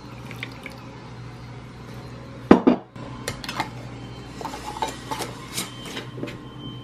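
Metal lid going onto a glass mason jar: a clunk about two and a half seconds in, then a run of small clicks and scrapes as the screw band is twisted down.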